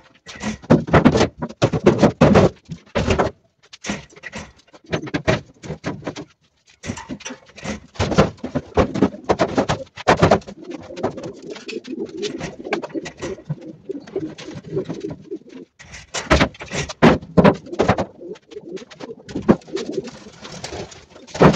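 Domestic pigeons cooing, mixed with clusters of knocks and clatter from metal tin nest boxes being handled and set on the shelves.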